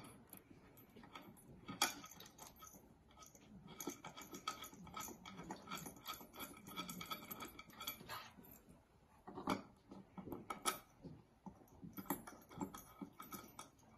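Faint clicks and small metallic clinks as screws are handled and threaded by hand into a wooden chair's stretchers and corner brackets, with a few sharper clicks scattered through.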